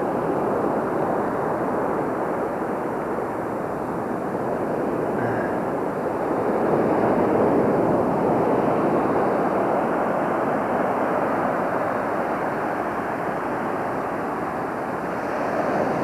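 Ocean surf rushing onto the beach as the tide comes in, a steady wash that swells louder about six seconds in.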